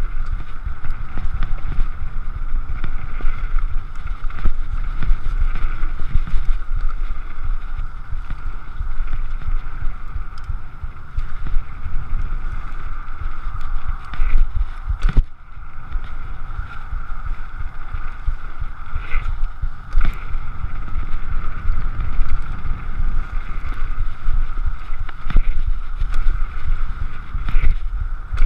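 Downhill mountain bike running fast down a rough gravel trail: steady wind buffeting on the action camera's microphone over the rumble of the tyres, with scattered knocks and clatter as the bike hits bumps. It goes briefly quieter about halfway through.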